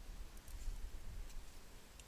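Faint, uneven low rumble of wind buffeting the microphone, with a few faint high ticks.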